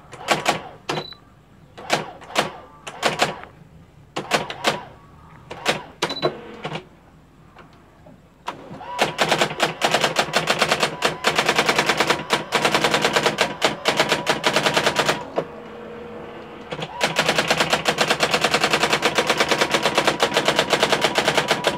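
Brother electronic daisywheel typewriter printing: scattered single keystrokes for the first several seconds, then a fast, even rattle of printwheel strikes, about ten a second, as it runs its self-demo text. The strikes break off for a couple of seconds about 15 s in, leaving a steady motor hum, then resume. This is a test print after the repair, and the letters now come out correctly.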